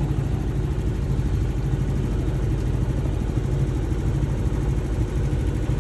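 Sailing yacht's auxiliary engine idling steadily, an even low drone.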